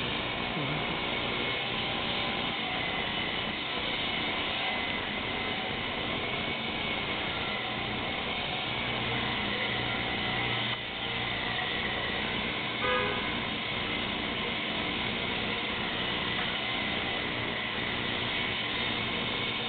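A steady mechanical hum and hiss that holds at one level throughout, with a brief small bump about thirteen seconds in.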